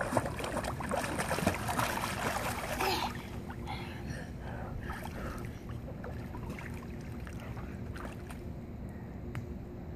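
Child swimming in a pool with arm floaties, kicking and paddling with splashing for the first three seconds, then quieter water moving as she reaches the wall and climbs out.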